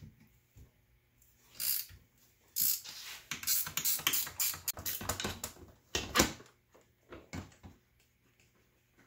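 Ratcheting wrench clicking in quick runs as 10 mm seat-bracket bolts are backed out, with one sharper, louder click about six seconds in.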